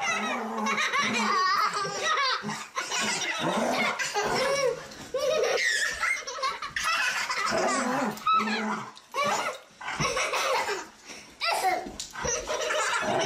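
A young child laughing hard in belly laughs, almost without pause, while being tickled and wrestled in play.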